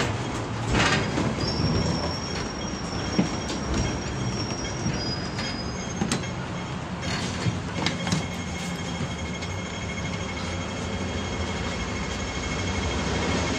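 Hong Kong double-decker tram running, heard from inside the car: a continuous rumble of the wheels on the rails with scattered knocks and rattles. A high thin wheel squeal comes in about a second and a half in and fades out past five seconds, and a faint steady tone joins about eight seconds in.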